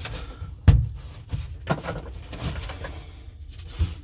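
Plaster and gypsum lath being broken away by hand around a hole in a wall: crumbling and cracking, with one sharp knock about three quarters of a second in.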